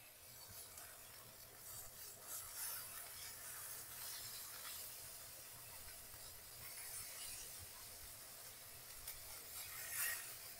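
Turkey burger patties sizzling faintly in a cast iron skillet, with a spatula scraping and rubbing against the pan as it slides under them; a louder scrape comes near the end.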